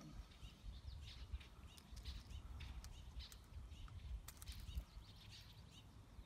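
Small birds chirping faintly around the water, with a low rumble underneath and a few sharp clicks, the clearest about four seconds in.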